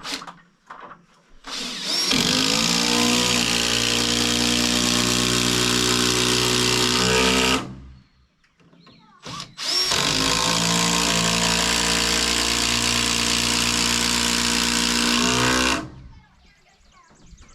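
Power drill running under load into a black locust brace, in two steady runs of about six seconds each with a short pause between them.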